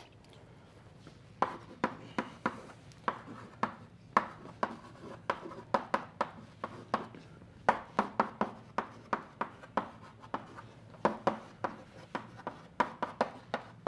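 Chalk writing on a blackboard: an irregular run of sharp taps and short scrapes as letters and symbols are formed, starting about a second and a half in.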